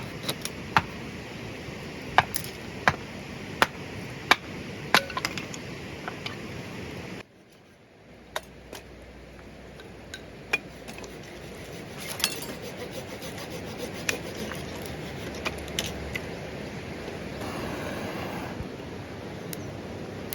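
Firewood being worked: a run of sharp wooden knocks, about one every 0.7 s. About 7 seconds in it cuts off abruptly, and a quieter stretch follows with only a few scattered clicks.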